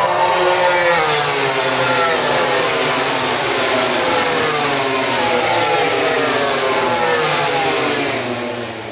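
Racing motorcycles passing one after another at full throttle, their high engine notes overlapping and each falling in pitch as it goes by. The sound fades near the end.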